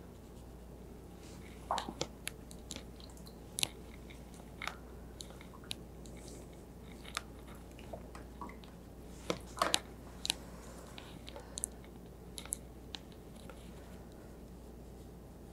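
Quiet, irregular small clicks and taps of watercolour brush work: the brush picking up paint from the palette and touching the paper, with a few louder clusters of taps. A faint steady low hum lies underneath.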